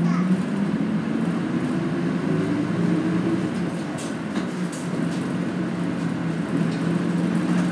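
Interior running sound of a Nishitetsu city bus: a steady engine drone with road noise, the engine note rising a little about two seconds in and easing back. A couple of faint ticks about four seconds in.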